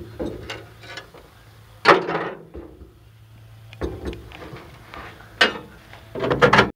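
Irregular knocks and clunks of a wooden subwoofer box being handled and shifted, about five in all, the loudest about two seconds in.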